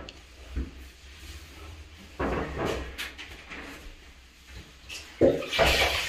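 Cloth rubbed across a glass shower screen in a few separate strokes, then, about five seconds in, a loud splash as the cloth is dipped in a bowl of water.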